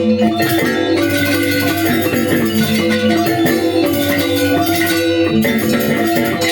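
Balinese gamelan angklung ensemble playing a tabuh kreasi: bronze metallophones ring dense, busy runs of notes over a steady low tone, with jingling percussion.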